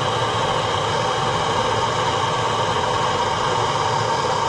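Handheld propane torch burning with a steady hiss, its flame aimed into a wood cook stove's firebox to pre-warm the flue.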